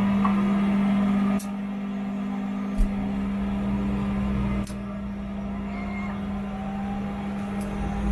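The Cessna Caravan's PT6A turboprop engine being started. A steady hum carries faint whines that rise slowly as the turbine spools up, with a brief low thump about three seconds in.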